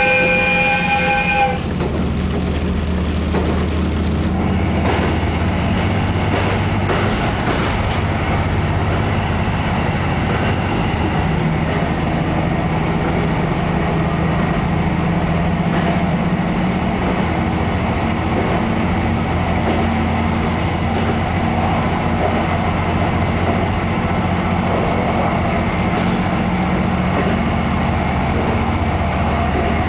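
JR Hokkaido 261-series diesel express train giving one short horn blast at the start, then running steadily through a tunnel: a constant low engine drone under wheel and rail rumble, heard from inside the front car.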